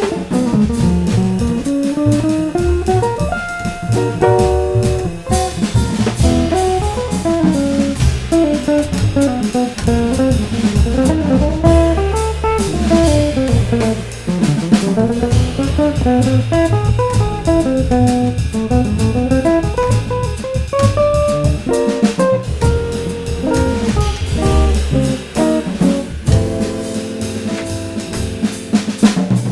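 Jazz trio playing: an electric guitar plays melodic runs that climb and fall, over double bass and a drum kit.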